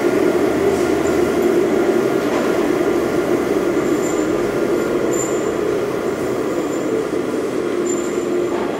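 FPEC vacuum paddle blender running: a steady mechanical drone with a strong hum from the drive, easing slightly toward the end, with a few faint high squeaks.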